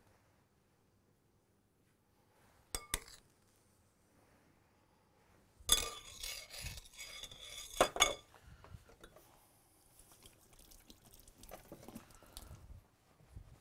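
A spoon clinking against a glass mixing bowl and pan: two light taps about three seconds in, then a couple of seconds of ringing clinks and scrapes ending in a sharp clink, followed by faint clatter.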